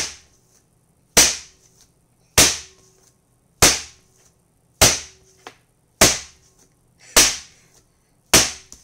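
Bread dough thrown down onto a floured wooden board, one sharp slap about every 1.2 seconds, eight in all: the dough being kneaded by slamming it.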